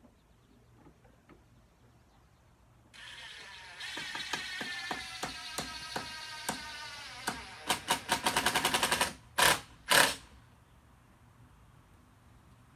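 Cordless impact driver driving a 2-inch wood screw. Its motor whine starts about three seconds in, with scattered clacks of the hammer that turn into a fast rattle as the screw tightens. Two short bursts of the driver follow.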